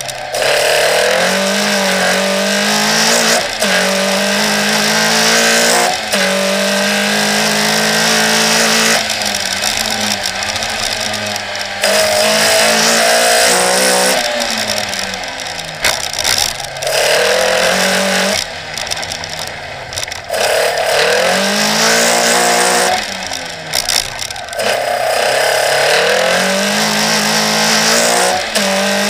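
Toyota Starlet KP rally car's swapped 2.0-litre Toyota 3S-GE BEAMS four-cylinder on individual throttle bodies, heard on board, driven hard through the gears. The revs climb again and again, dropping sharply at each gear change or lift off the throttle for a corner, with the deepest lifts a little before halfway and about two-thirds of the way in.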